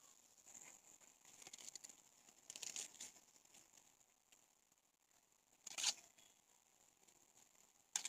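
Dry husk leaves being torn and peeled by hand off an ear of red corn: soft rustling with a few sharp rips, the loudest a little before six seconds in and another near the end.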